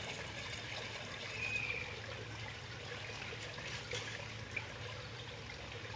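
Water trickling steadily, with a faint low hum underneath.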